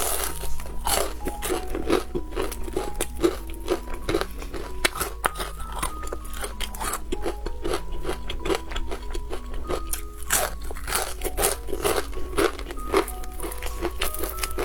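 Crisp fried chicken cutlet crunching as it is bitten and chewed, a dense run of sharp crunches, over light background music.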